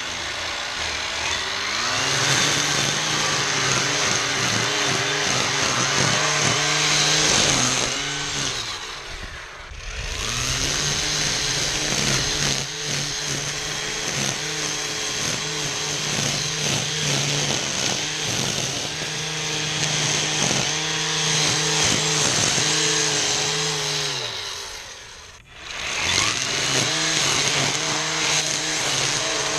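ECHO 58-volt battery string trimmer running at full speed, its electric motor whine wavering as the line cuts through tall weeds and grass. The trigger is let off and the motor spins down twice, about nine seconds in and again near twenty-five seconds in, each time ramping back up to speed.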